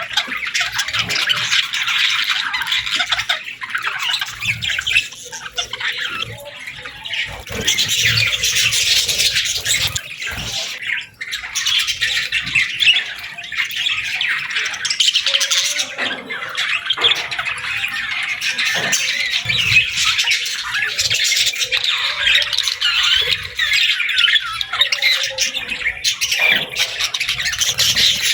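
Many small birds chirping and squawking in a dense, continuous chorus of short high calls, thinning briefly a few seconds in and dropping out for a moment near the middle.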